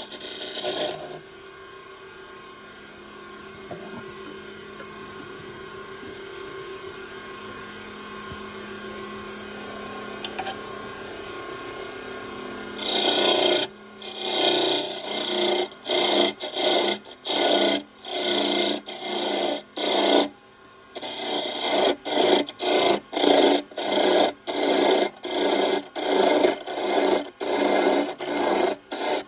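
Woodturning lathe running steadily. About a third of the way in, a tool starts rasping against the spinning wood in short, loud passes, roughly one a second.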